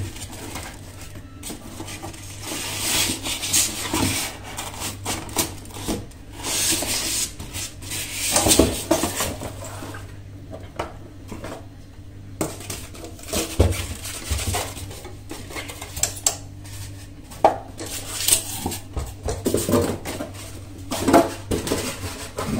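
A PFS-300 impulse bag sealer being unboxed: cardboard box flaps and paper packing rustling and scraping, with scattered knocks and clatter as the metal sealer and the box are handled and set down.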